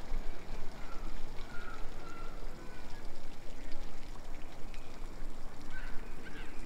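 Water from a tiered stone fountain splashing and pouring into its basin, a steady rushing noise.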